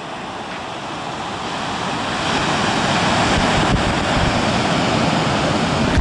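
Ocean surf breaking and washing up the beach, a steady rush that swells over the first couple of seconds, with wind buffeting the microphone in low rumbles.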